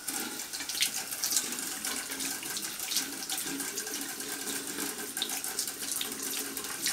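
Bathroom sink tap turned on and running, water splashing steadily as freshly bleached hair strands are rinsed under it to wash out the lightener.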